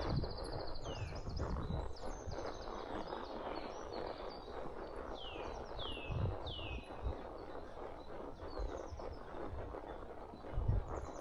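Songbirds calling in woodland, with several quick whistled calls that sweep downward in pitch and a rapid high trill at the start. Underneath is a steady outdoor rustle with occasional low thuds of a horse's hooves on the trail.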